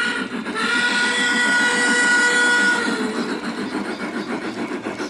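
Large-scale model narrow-gauge steam locomotive's whistle: a short toot at the start, then a steady chorded blast of about two seconds, over the rhythmic running sound of the passing locomotive.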